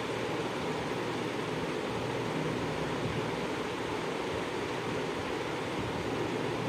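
Minced mutton frying in oil in a metal kadhai, a steady, even sizzle.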